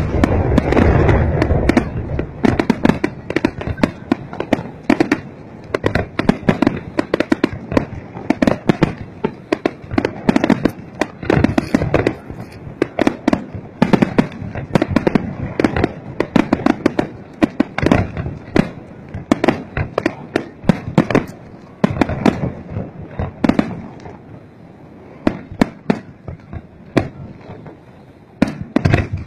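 Fireworks display: aerial shells bursting in rapid, overlapping bangs and crackles. They are densest in the first two seconds and go on in irregular volleys, a little sparser near the end.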